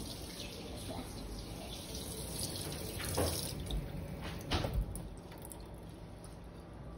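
Kitchen tap running into a stainless-steel sink, a steady splashing hiss that grows fainter in the second half, with a couple of light knocks about three and four and a half seconds in.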